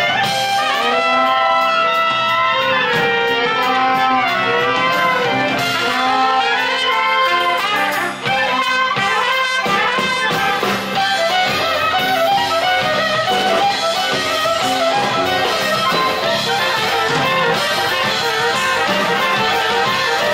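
Klezmer band playing an instrumental passage live: trumpet and clarinet carry bending melody lines over accordion, violin and drums.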